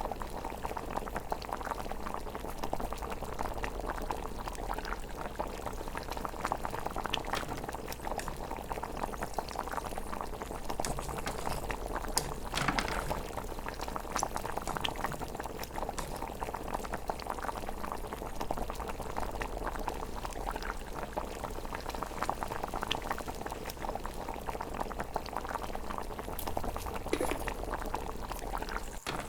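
Steady bubbling and popping of a pot simmering, with a few louder pops midway.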